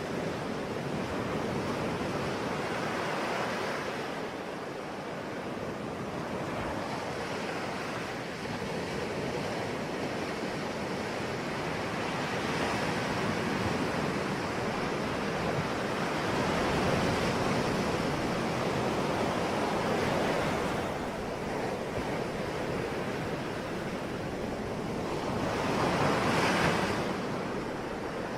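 Ocean waves breaking and washing on the shore, a continuous surf that swells and recedes every few seconds, with one louder wave near the end.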